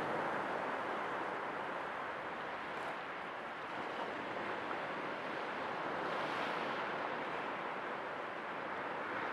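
Sea waves washing onto a shore: a continuous rush of surf that eases slightly a few seconds in and swells again about six seconds in.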